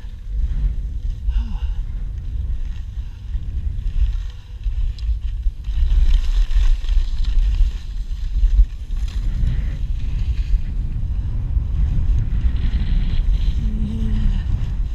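Wind buffeting the microphone of a moving skier, a heavy low rumble, with the hiss and scrape of skis on snow. The scrape swells in stretches, loudest about six to eight seconds in and again near the end.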